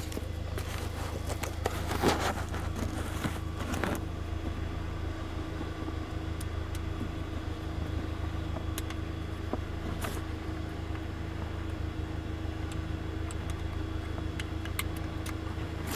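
Audi TT's engine idling, heard inside the cabin, with a steady buzz that the owner puts down to a busted blow-off valve. A few brief handling clicks and rustles about two and four seconds in.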